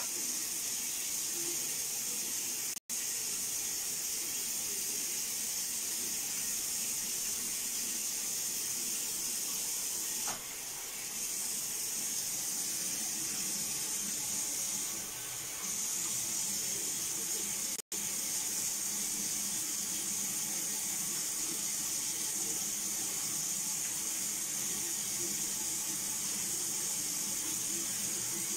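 Kitchen tap running steadily into a stainless-steel sink, the stream splashing over potatoes being rinsed under it. The sound cuts out for an instant twice.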